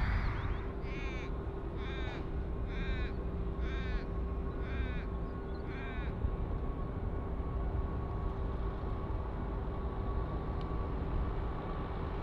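A crow-like bird cawing six times, about a second apart, each call falling in pitch. Under it run a low steady rumble and a faint steady hum.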